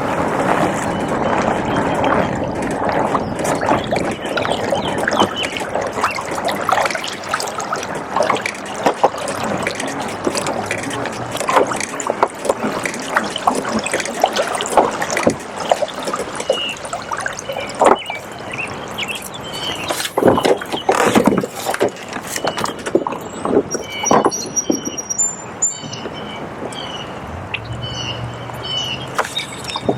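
Fast floodwater splashing and gurgling, mixed with many small knocks and clicks. Short high chirping notes come in during the last few seconds.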